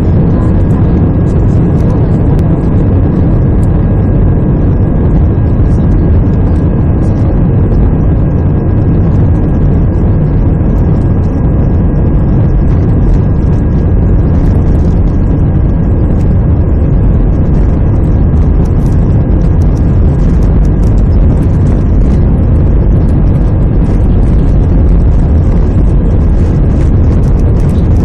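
Jet airliner's engines running at takeoff power during the takeoff roll, heard inside the cabin: a loud, steady, deep roar with a faint steady whine above it.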